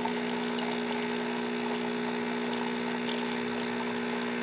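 Ascaso Basic espresso machine's vibratory pump buzzing steadily, pushing cold water from the tank through the thermal block and out the open steam wand to cool it down after steaming.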